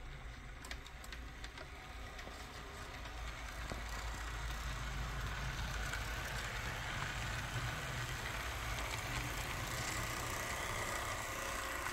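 HO scale model train running along the track behind a model GP40 diesel locomotive: small motor hum and wheel-on-rail noise, growing louder about four seconds in as it comes closer.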